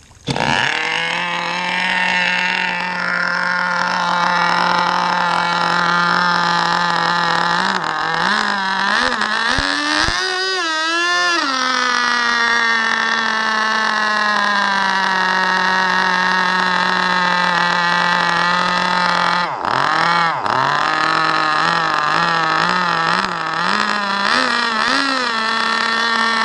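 K&B vintage nitro glow two-stroke outboard on an RC boat catching on the starter right away and running at a loud steady high-pitched idle (a racket), with revs rising and wavering about eight to eleven seconds in, a brief dip near twenty seconds, and a few short rises in pitch before it cuts off suddenly at the end.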